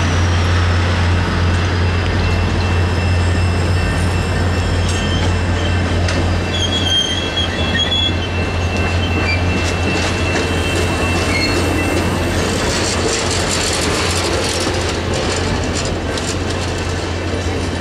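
Rocky Mountaineer passenger cars rolling through a level crossing: a steady deep rumble with thin, high wheel squeal. More clicking of wheels over the rails comes in during the second half.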